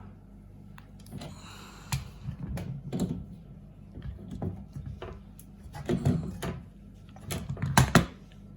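Irregular clicks, knocks and handling noise as cleaned washing-machine drain pump parts are fitted back and tightened, with the loudest knocks about six seconds in and near the end.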